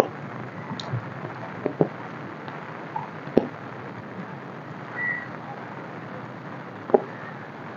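Steady rain falling on wet pavement, with a few sharp taps scattered through and a brief high whistle-like tone about five seconds in.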